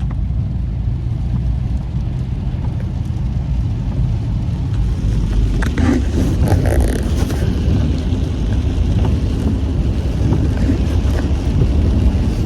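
Car interior noise while driving: a steady low engine and road rumble, with a brief swell of hiss about six seconds in.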